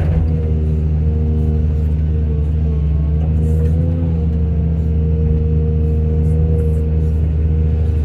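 Heavy diesel engine of an excavator running steadily, its pitch rising and falling slightly about four seconds in.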